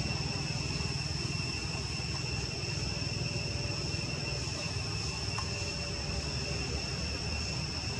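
A steady, high-pitched insect drone holding one pitch throughout, over a low, continuous rumble.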